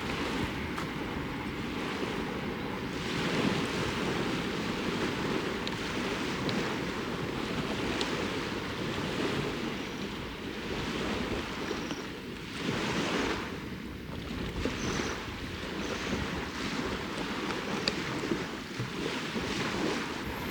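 Lake waves washing onto the shore, with wind, swelling louder a couple of times.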